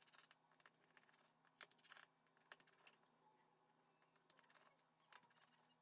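Near silence, with a few faint, scattered small clicks of a precision screwdriver working the screws of the phone's middle frame.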